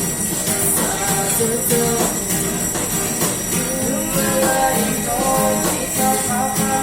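Live street-busker music: a melody with instrumental accompaniment over steady jingling percussion, as from a tambourine or shaker.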